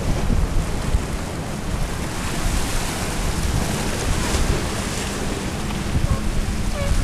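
Wind buffeting the microphone over the steady wash of choppy harbour water.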